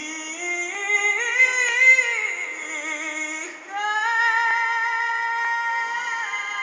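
Very high 'dolphin voice' singing over backing music: a vibrato-laden melodic line that climbs and falls, then, after a short break about three and a half seconds in, a long, very high held note that ends a little after six seconds.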